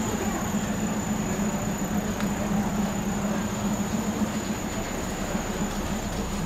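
Diesel railcar running slowly, heard from inside the carriage: a steady engine drone under an even rumble of wheels on the track.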